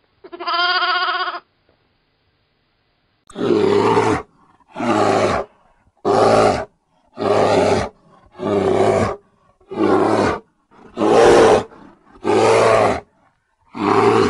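A lamb bleats once, briefly. Then a deep animal roar repeats nine times at an even pace, about one every 1.2 seconds, each roar under a second long.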